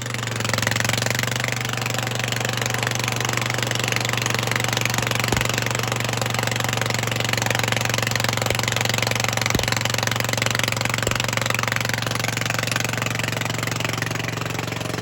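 Vermeer SC30TX stump grinder's engine running steadily at an even speed, with a constant hum and a dense hiss over it.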